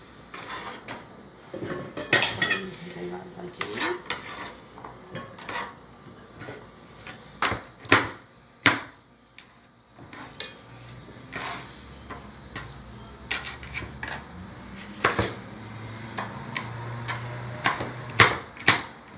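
Chef's knife chopping bell peppers on a plastic cutting board: irregular sharp knocks of the blade against the board, a few of them much louder.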